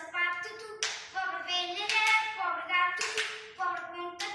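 A child chanting a traditional Portuguese rhyme in a sing-song voice, with hand claps about once a second.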